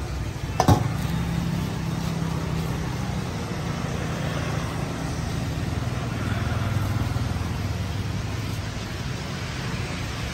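A single sharp metallic clank about a second in, with a short ring, as the lid of a rice-roll steamer pot is set down, over a steady low rumble.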